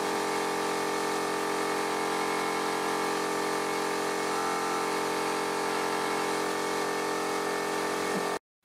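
A motor running with a steady hum of several tones, which cuts off suddenly near the end.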